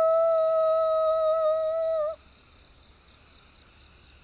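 A person's long howling 'ooh' call imitating a Sasquatch call, held on one steady pitch and breaking off with a small wobble about two seconds in.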